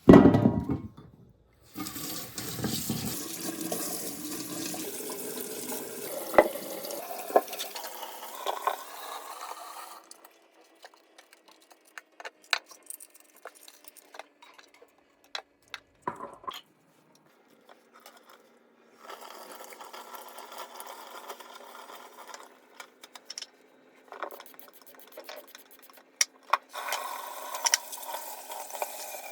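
Water running from a kitchen tap into a vessel for about eight seconds, the pitch rising as it fills, after a knock at the start. Then scattered clicks and knocks of kitchen handling, with two more stretches of running sound later on.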